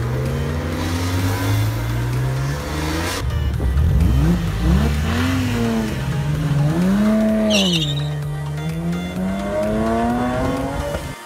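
BMW M cars' straight-six engines accelerating hard away from a bend one after another, the engine note climbing, falling back and climbing again as they rev through the gears. A short tyre squeal about seven and a half seconds in.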